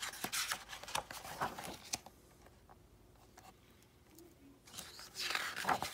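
Picture-book pages being turned by hand: a clear plastic overlay sheet and paper pages rustling and sliding, with small clicks. A quiet pause follows, then more page rustling near the end.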